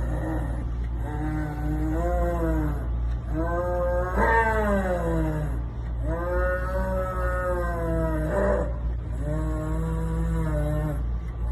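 A large wild cat calling four times, each a long drawn-out moaning call of about two seconds that rises and falls in pitch, over a steady low hum.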